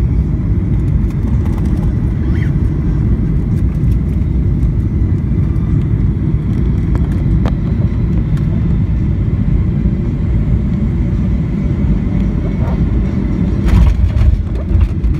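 Steady low rumble of a jet airliner's engines and airflow heard from inside the cabin on final approach. Near the end there is a single thump as the wheels touch down on the runway.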